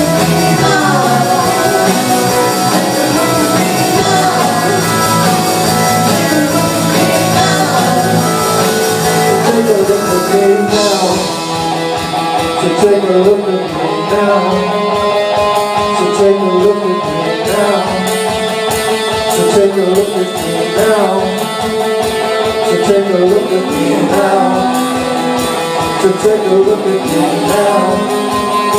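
Live rock band playing, with guitar and singing.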